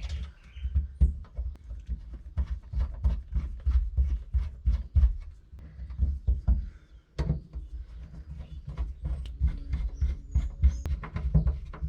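Irregular small clicks and dull low knocks of hands working a fuel gauge sending unit and its gasket into place at the fuel tank opening.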